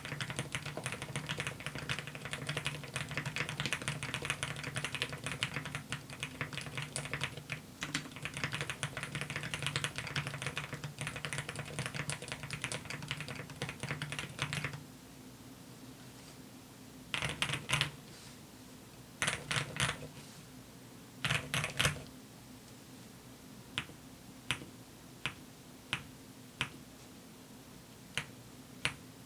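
QK65 mechanical keyboard with hybrid silent linear switches (TTC Silent Red v3 stems, springs and top housings on Gateron Pro Red bottom housings). It is typed on fast and continuously for about fifteen seconds, then in three short flurries, then single keys are pressed about once every two-thirds of a second. Each press gives a single low, thocky bottom-out sound with a slight rubbery edge: the top-out sound on the key's return is silenced.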